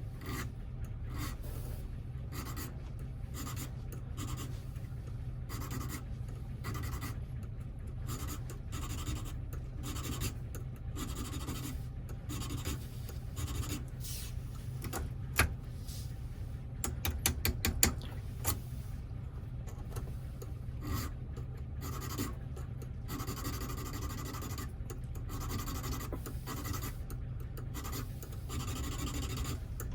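Light scratching and rubbing with small clicks from hand work on a Toyota door lock cylinder and its wafers, with a sharp click about halfway through and a quick run of clicks just after.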